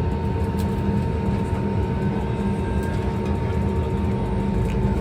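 Jet airliner cabin noise on the ground before take-off, with the engines running: a steady low rumble with a steady high whine.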